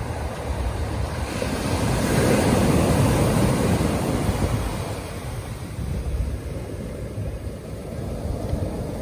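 Surf breaking and washing up a sandy beach. The rush of water swells to its loudest about two to four seconds in, then eases as the wave runs back. Wind buffets the microphone.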